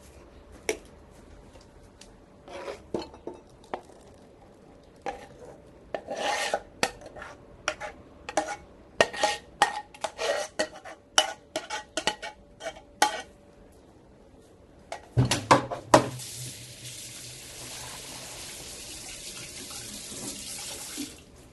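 A spoon scraping and knocking against a cooking pot in irregular clicks as cooked oatmeal is scooped out into a ceramic bowl. About sixteen seconds in, the clatter gives way to a steady hiss lasting about five seconds.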